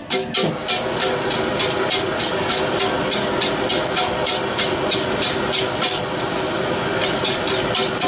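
Metal spatula scraping and striking a wok in quick, regular strokes, about three to four a second, as fried rice is stir-fried over a steady hiss from the gas burner and the sizzling pan.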